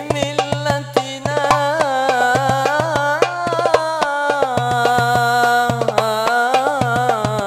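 A man singing an Arabic sholawat (Islamic devotional song) into a microphone, with long ornamented held notes, over a hand drum struck in a steady rhythm.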